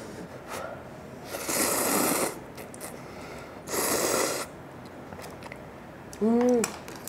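Instant ramen noodles slurped from a paper cup, two long slurps about two seconds apart. A short hummed 'mm' near the end.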